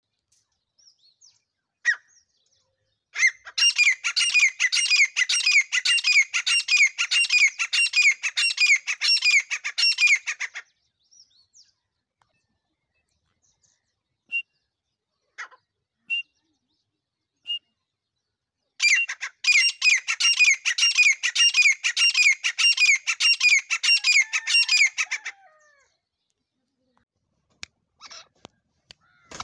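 Female teetar, a francolin, calling in two long runs of rapidly repeated loud notes, each lasting about six to seven seconds, with a few single notes in the gap between.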